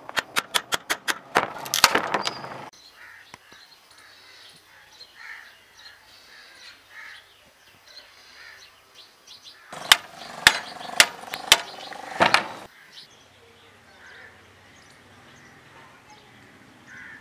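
Sharp tapping and knocking of a screwdriver being driven and pried into the old wooden handle of a crosscut saw to split it off the blade. It comes in two bouts, rapid strikes at the start and a few strikes about ten seconds in.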